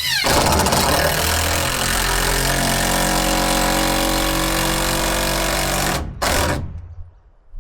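A power tool running steadily for about six seconds, followed by a short second burst.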